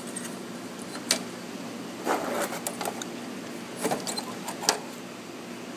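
Lid being put on an aquarium tank: a scattering of light clattering knocks and rattles, one about a second in, a cluster around two seconds and more near four and five seconds, over a steady background hum.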